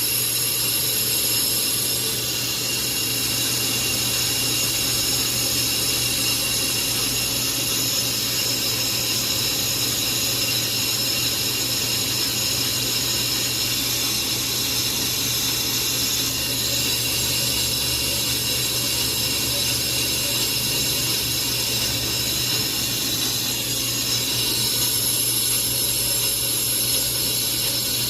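Brake lathe running steadily as its cutting bit skims a warped Jetour T1 brake rotor, truing the disc face. A constant motor hum with thin, high ringing tones from the cut.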